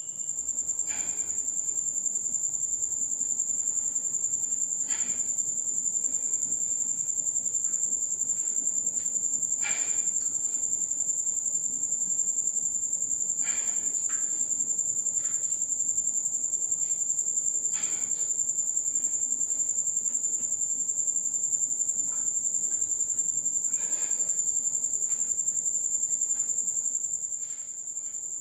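Crickets trilling steadily in a high, unbroken chorus, with a few faint knocks every few seconds.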